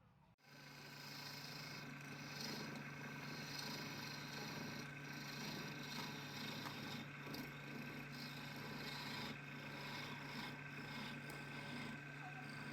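Restored lathe's electric motor running steadily with a low hum, and a rough scraping or rubbing noise over it; it starts suddenly about half a second in.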